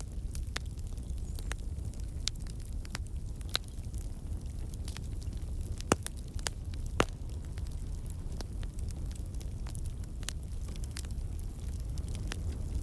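Campfire burning: a steady low rumble of flames with irregular sharp crackles and pops of burning wood, two louder pops about six and seven seconds in.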